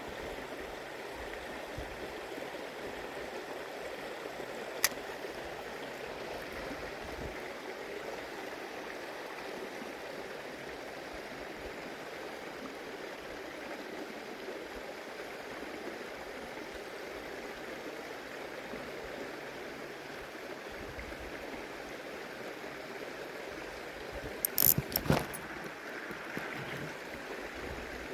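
Shallow stream water flowing steadily. A single sharp click comes about 5 s in, and a short cluster of louder clicks near the end.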